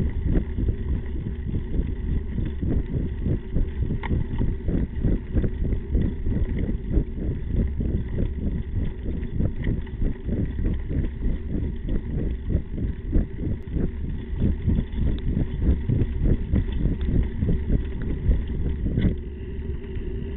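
Slingshot Ripper mountain bike riding over a rough dirt track, heard from a camera mounted on the bike's frame: continuous rattling and jolting of the bike and mount over the bumps, with a low wind rumble on the microphone. A sharper knock comes about 19 seconds in, after which the ride runs a little smoother.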